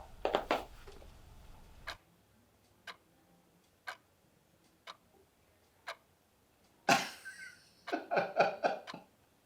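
Clock ticking about once a second in a quiet room. About seven seconds in, a person's voice breaks in loudly for a couple of seconds.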